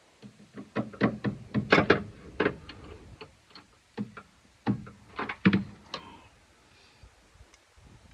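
Irregular sharp clicks and knocks from hand tools at work during an alternator replacement, in two flurries: one from just after the start to about two and a half seconds in, another from about four to six seconds in.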